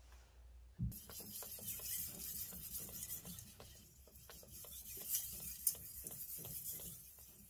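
Gyuto chef's knife blade being stroked back and forth on a wet waterstone during sharpening: quick, even scraping strokes that start about a second in.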